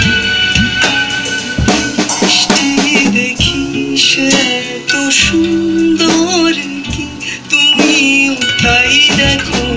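Drum kit being played, with frequent stick hits on drums and cymbals, along with a song that has guitar in it.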